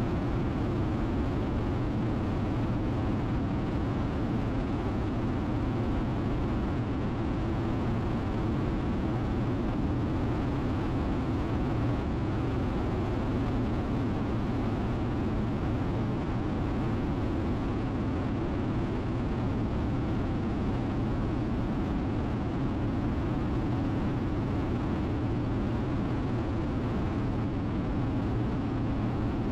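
Harley-Davidson Road King V-twin running steadily at highway cruising speed, with a constant rush of wind on the microphone; the level and pitch hold steady throughout, with no shifting or revving.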